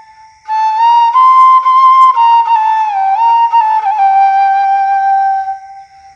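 Bashi, the Bengali bamboo flute, playing one slow, sad melodic phrase that steps and glides between notes. It comes in about half a second in and fades out near the end.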